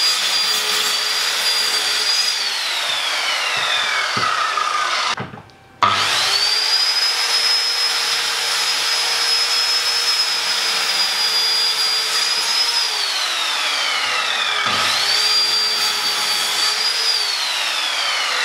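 Powerplus 1500W corded circular saw cutting timber. Its motor whines at full speed, then winds down with a falling pitch each time the trigger is released. This happens three times: the first run winds down after about two seconds, a second starts about six seconds in and runs about seven seconds, and a third short run starts about fifteen seconds in and winds down near the end.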